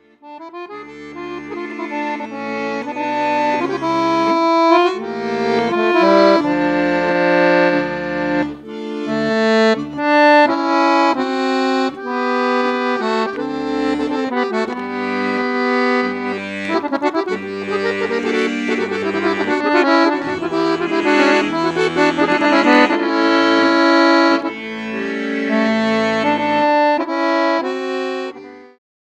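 Accordion playing an instrumental tune, melody over chords with bass notes beneath. It fades in over the first couple of seconds and stops shortly before the end.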